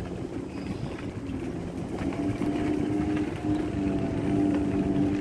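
Electric bike's motor whining steadily over rough tyre noise on a dirt trail, a higher whine coming in about two seconds in.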